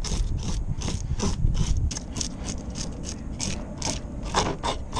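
Fish scaler scraping the scales off a whole black sea bass on a plastic cutting board, in quick repeated strokes at about four a second.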